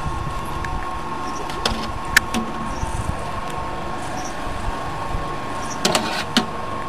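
Motor-driven screw-press cow-dung dewatering machine running steadily, a constant hum with a steady whine, as pressed dung solids are pushed out of its discharge end. A few sharp clicks and knocks sound over it, about two seconds in and again near the end.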